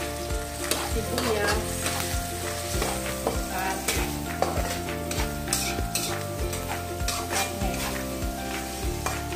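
Onions and meat sizzling in hot oil in a metal wok, stirred and scraped around with a wooden spatula.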